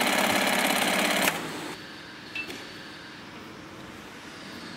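Industrial bag-closing sewing head on a sack sealing machine running at speed, a loud rapid even stitching chatter that stops about a second in. After it, only a low steady machine background with a faint click remains.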